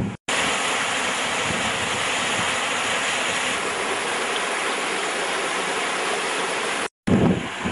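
Steady rushing of a small waterfall pouring between boulders into a rock pool. It starts and stops abruptly at edits.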